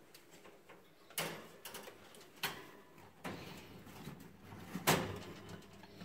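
Four sharp knocks with rustling between them, the loudest near the end.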